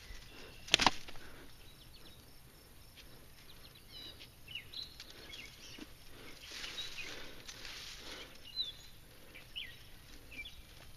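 Small birds chirping intermittently in the background, with soft rustling of dry grass and rock as a hand gropes in a crevice, and one sharp click about a second in.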